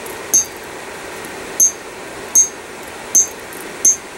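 Hammer striking a hand-held punch five times, roughly every three-quarters of a second, each blow a sharp metallic clink with a short high ring as the punch stamps dot marks into hot steel on the anvil. A steady hiss runs underneath.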